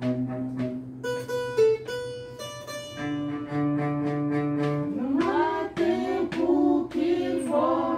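Cello, violin and cavaquinho playing together: held cello and violin notes over the plucked cavaquinho. About five seconds in, a melody of sliding, bending notes comes in over the low strings.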